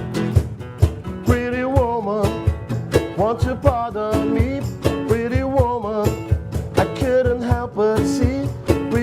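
Live band music: a guitar-led trio playing over a steady drum beat, with a melody line that slides and wavers in pitch.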